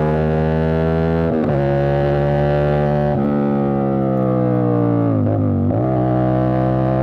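CFMOTO 450SR parallel-twin on an Avionic aftermarket exhaust under way. The engine note climbs, breaks briefly twice (about one and a half and three seconds in) as gears change, then sinks as the throttle closes, wavers for a moment around five seconds in, and climbs again near the end.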